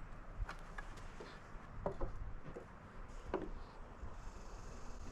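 A few faint, scattered knocks and rubbing sounds over low background noise.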